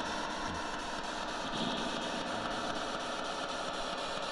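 Steady hiss of noise with a faint low hum underneath, unchanging throughout, with no distinct events.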